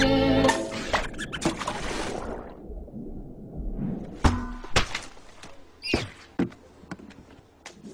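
Cartoon sound effects: string music trails off, a rushing hiss lasts about two seconds, then several separate thunks and knocks, one with a short squeaky chirp about six seconds in.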